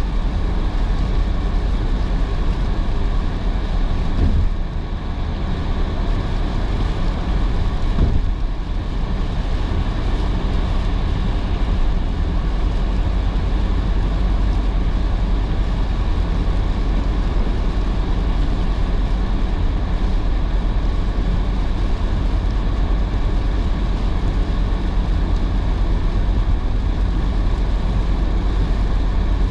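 Steady noise of a car driving in heavy rain: tyres hissing on the wet road and rain, over a deep road and engine rumble, with a brief lull about four seconds in.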